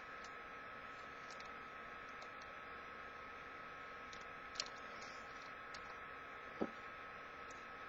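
Faint clicks of a metal staple remover working a staple out of packaging, two small clicks about two seconds apart in the second half, over a steady hiss with a thin high hum.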